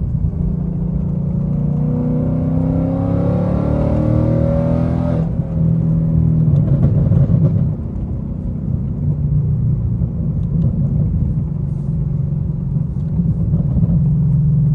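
Roush-supercharged 5.0 V8 of a 2020 Mustang GT heard from inside the cabin: the revs climb for about four seconds, fall off sharply a little after five seconds in, and the engine then settles into a steady low exhaust drone.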